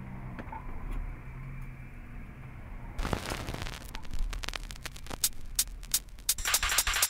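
Low hum from the turntable and amplifier, then about three seconds in the stylus drops onto a spinning vinyl LP and the lead-in groove gives a run of crackle and pops: surface noise heard through a Shure M44-7 cartridge.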